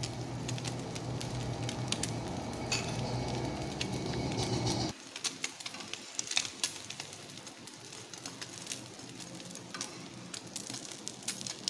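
An egg frying in oil in a pan, sizzling and crackling. A steady low hum underneath cuts off abruptly about five seconds in, leaving scattered sharp crackles.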